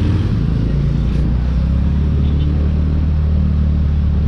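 Motor scooter's engine running with a steady low hum while the scooter pulls away and picks up speed in traffic, over road and wind rumble.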